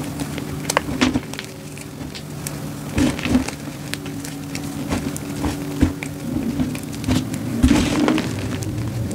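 Crumbled, dyed SPRI gym chalk (magnesium carbonate blocks) crunching and crackling as hands squeeze and knead it in a plastic tub, with a dense run of small crackles and several louder crunches, over a steady low hum.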